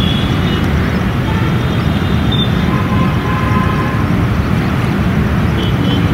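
Steady low outdoor rumble, with a faint steady tone about three seconds in.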